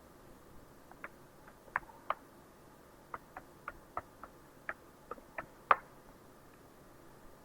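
A run of about fourteen sharp, irregular clicks from a computer keyboard and mouse being used, the loudest near the end.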